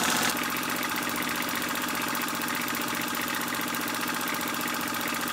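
Fleischmann 125/2 toy stationary steam engine running smoothly at speed, driven by air through a hose rather than by steam, with a fast, even mechanical beat.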